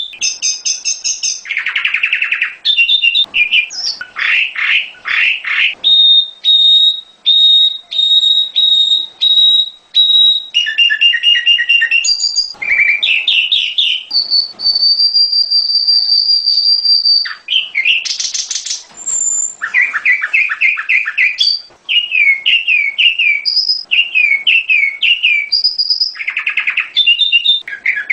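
Prenjak gunung (a prinia) singing a varied song without pause. It runs through quick series of repeated chirps, rattling trills and several long, steady high whistles, the longest lasting about three seconds around the middle.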